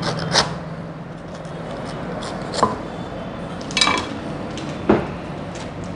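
Knife blade cutting and prying into the thick, spiky husk of a Musang King durian, giving four sharp cracks spaced about a second apart. The husk is still hard to split open.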